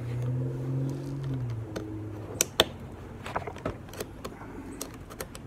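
Sharp metallic clicks and knocks from the hands working a Ruger AR-556 rifle's receiver and takedown pin, the two loudest close together about two and a half seconds in, over a low steady hum that is stronger in the first second and a half.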